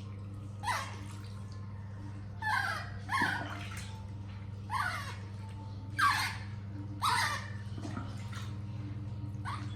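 A baby monkey giving short, high squeaks that fall in pitch, about seven of them spaced irregularly, over a steady low hum.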